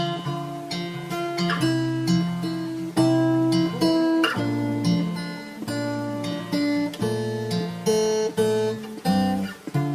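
Instrumental acoustic guitar music: chords played with a sharp attack, changing about once a second, with no singing.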